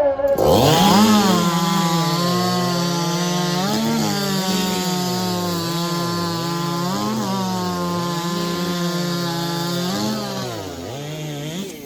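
A 90cc-class racing chainsaw opens up to full throttle and runs through a timed race cut. Its high steady pitch dips briefly three times before it drops off near the end.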